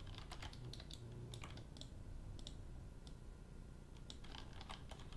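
Faint clicking of a computer keyboard and mouse: short, sharp clicks coming in small scattered clusters.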